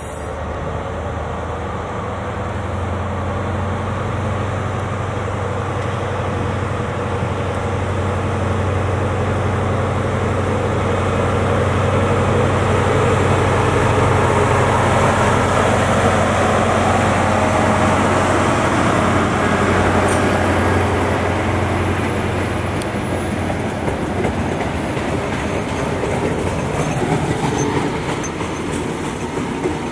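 Class 43 HST diesel power car passing close by, its engine droning steadily and growing louder towards the middle. About two-thirds of the way through the engine note drops away, and the coaches' wheels are heard rolling over the track.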